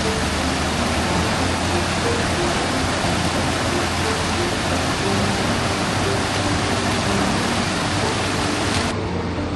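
Steady rushing noise of running water, cutting off suddenly near the end, over quiet background music.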